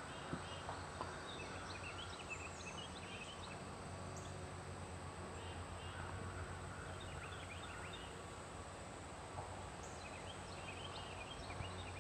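Faint small-bird chirps in three short clusters, over a low steady background hum.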